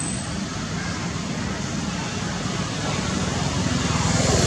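A motor vehicle's engine running close by, getting louder toward the end, over steady outdoor road noise.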